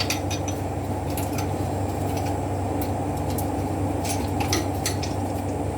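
Steady low hum of background machinery, with faint, scattered small clicks and taps from hands handling plastic parts and cables.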